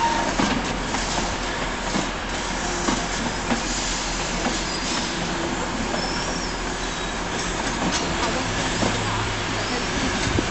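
Mk3 passenger coaches and a Driving Van Trailer rolling slowly past on a shunt, wheels clicking irregularly over rail joints and pointwork, with a brief high wheel squeal about five seconds in.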